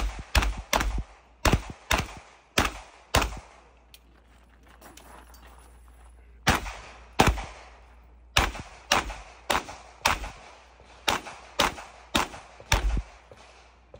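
Handgun shots fired in quick strings, roughly two a second, each with a short echo. After about seven shots there is a pause of about three seconds, then a second string of about a dozen shots.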